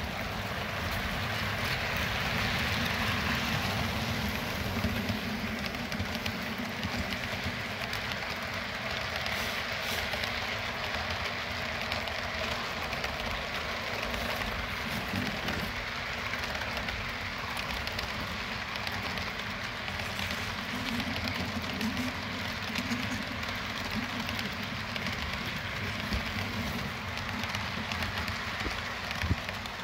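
Model railroad freight train rolling past close by: a steady rumble of metal wheels on the track, with scattered light clicks.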